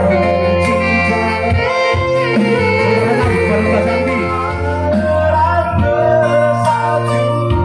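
Live organ tunggal music through a PA: an arranger keyboard plays held chords over a steady bass, and a woman and a man sing a duet into microphones, with a wavering held note in the middle.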